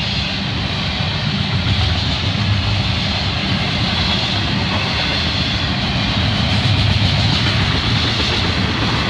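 Double-stack intermodal container cars of a freight train rolling past: a steady rumble and rattle of steel wheels on the rails.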